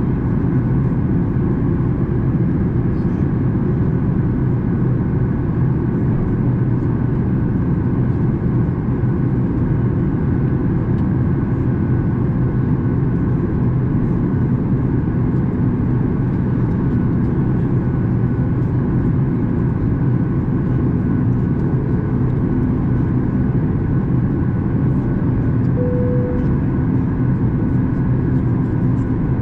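Steady cabin noise inside a Boeing 737 MAX 8 in flight: an even, deep rumble of its CFM LEAP-1B engines and the airflow past the fuselage, with a few faint steady hums.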